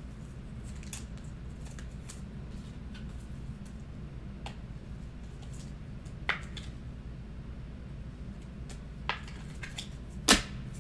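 Sporadic faint clicks and rustles of trading cards being handled on a table, over a steady low hum. A sharper click comes about six seconds in and a louder one near the end.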